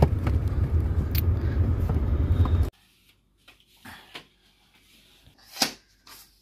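Car cabin road noise, a steady low rumble, that cuts off abruptly after under three seconds; then a quiet room with faint rustles and clicks and one louder rustle near the end.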